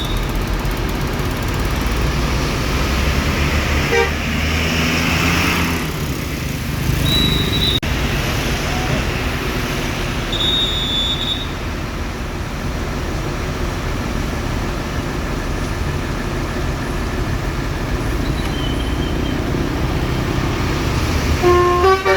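Steady road traffic with vehicle engines passing, with a few brief high beeps about a third of the way in. Near the end a bus's Basuri telolet air horn starts playing a melody of quick stepped tones.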